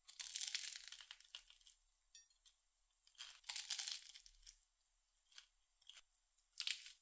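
Crusty toasted sandwich bread crackling as it is torn apart by hand, in three crunchy bursts; the first is the longest and the last is short.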